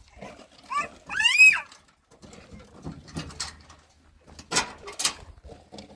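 A short, high animal call about a second in, rising and then falling in pitch. It is followed by two short sharp noises a little after four seconds.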